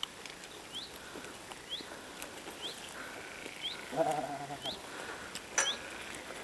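A goat bleats once, briefly, about four seconds in. Under it a faint high chirp repeats about once a second, and there is one sharp click a little past five and a half seconds.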